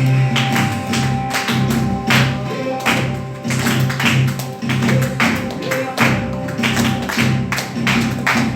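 Upbeat Christian praise music: a band with sustained bass notes under sharp percussion hits on a steady beat.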